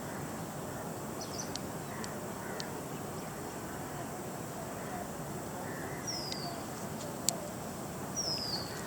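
A steady background hiss with a bird's short, high, falling chirp repeating every couple of seconds, and a few faint clicks, one sharper near the end.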